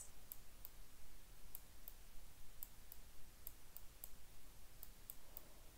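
A dozen or so faint, irregular computer-mouse clicks as letters are drawn stroke by stroke on a digital whiteboard.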